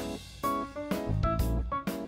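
Instrumental background music: a melody of short, separate notes over a steady drum beat.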